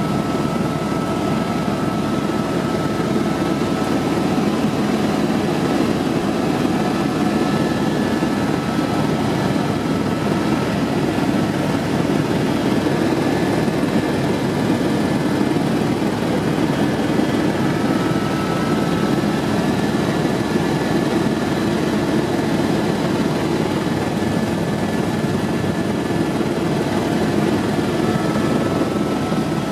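Helicopter cabin noise in flight: the steady drone of the engine and rotor heard from inside the cockpit, with faint steady whining tones over it.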